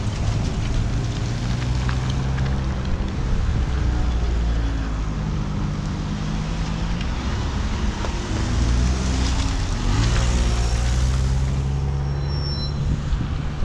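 Motor vehicles driving past on a city street, their engines humming and shifting in pitch as they pass. There is a brief high-pitched tone near the end.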